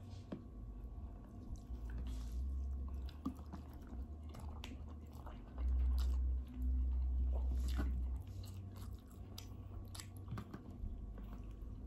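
Close-up eating sounds: chewing and biting, with small clicks and rustles of fingers picking food off a plate. A low rumble, the loudest part, runs for about two seconds a little past the middle.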